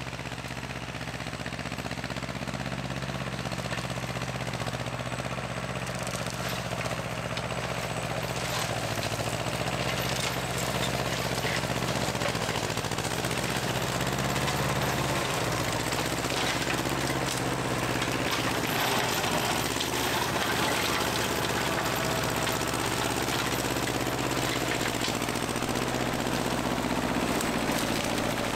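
Tractor engine running steadily while cutting grass, growing a little louder over the first half.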